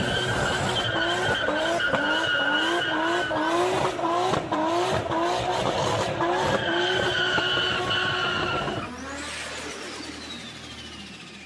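A car doing a burnout: the tyres spin with a steady high squeal while the engine is revved over and over, its pitch rising and dropping two to three times a second. About nine seconds in, the sound drops sharply and fades out under a long falling whine.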